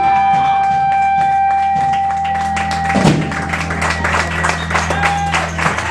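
Live rock band holding the closing chord of a song, with a drum hit about halfway through, while the audience claps; the held bass note cuts off near the end.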